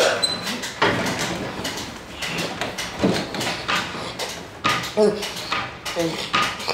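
Someone thrashing on a wooden bed: a rapid, irregular run of knocks and fabric rustling, with a few short vocal grunts.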